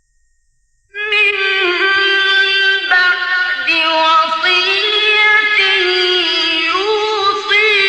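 A male Quran reciter's high voice, in the melodic mujawwad style, comes in about a second after a pause. It holds long, ornamented notes that bend and slide in pitch.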